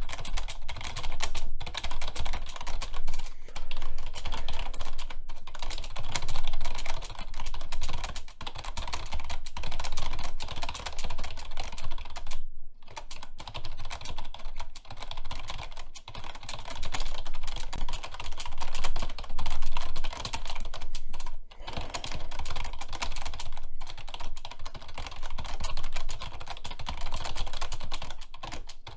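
Fast, hard typing on a computer keyboard: a dense, continuous stream of key clicks during a speed typing test, with a couple of brief pauses partway through.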